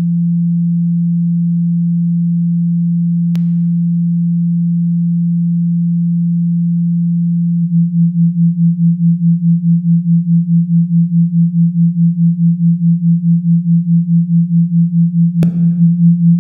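A single steady low hum near 170 Hz, made from a spectrally frozen slice of a female voice passed through a spectral gate. About eight seconds in it starts pulsing evenly at about four beats a second, and two faint clicks come along the way.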